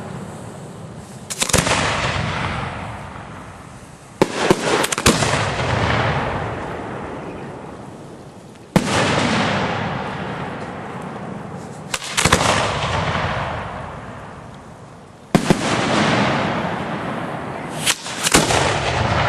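Aerial fireworks shells going off one after another, about six reports spaced a few seconds apart. Each is a sharp bang, some with several quick cracks, followed by a long rolling echo that fades away.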